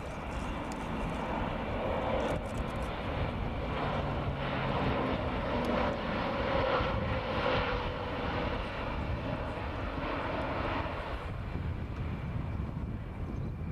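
Airbus A400M Atlas's four Europrop TP400-D6 turboprops flying past, the engine and propeller noise swelling about two seconds in, loudest around the middle, then easing off near the end.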